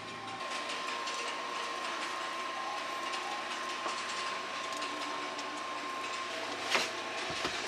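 Steady hiss of a gas stove burner under a frying pan, with a thin steady hum, while baguette halves are toasted in the pan; the hiss gets a little louder about half a second in. A short sharp knock near the end.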